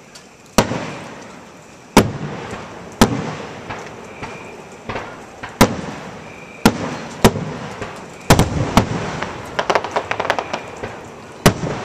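Aerial fireworks shells bursting in a display: a sharp boom every second or two, each trailing off in a rumbling echo, with a run of quick crackling pops about ten seconds in.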